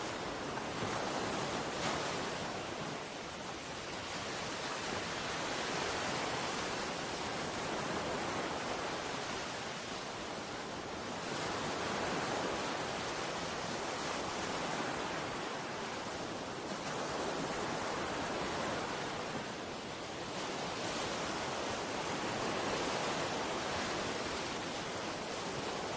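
Steady wash of sea waves, swelling and easing every few seconds.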